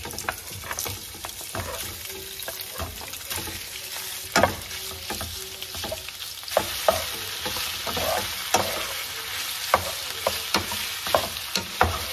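Sliced bratwurst rounds sizzling as they fry in a little oil in a pan. A utensil clicks and knocks against the pan now and then, more often in the second half.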